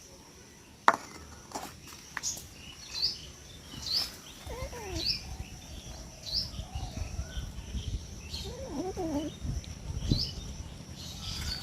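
A small bird chirping over and over, short high chirps about once a second, with a couple of faint cat meows in the middle. There is a sharp click about a second in.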